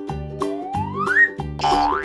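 Bouncy children's background music: a short repeating tune with a rising sliding note lasting about a second, and a brief swish near the end.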